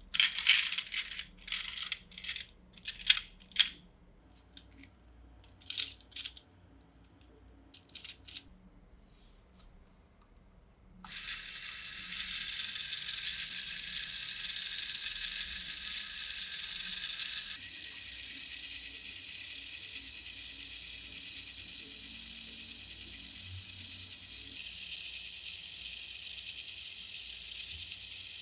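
Hard plastic Lego Technic beams clicking and clattering as they are dropped one by one onto the forks. About 11 s in, a Lego Power Functions electric motor starts and runs steadily with a high-pitched whir through its plastic gear train, lifting the loaded forks up the mast.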